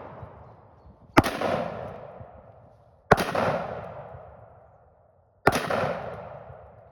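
Three blasts from a Rock Island VR60 semi-automatic shotgun, about two seconds apart, each followed by a long echo that dies away over a couple of seconds. As it begins, the echo of an earlier shot is still fading.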